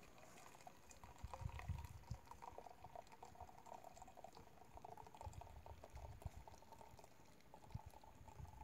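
Coffee poured in a thin, steady stream from an enamelware coffee pot into a cone filter over a cup, trickling faintly.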